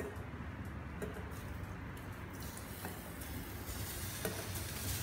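Diced vegetarian char siu being scraped from a glass bowl into the hot steel jar of an iNNOCHEF multi-cooker, starting to sizzle about halfway through, with a few light clicks of the spatula against the bowl.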